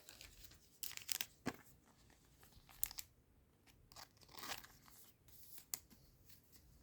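Foil trading-card booster pack wrapper crinkling and tearing: a series of short, faint rustles and crackles.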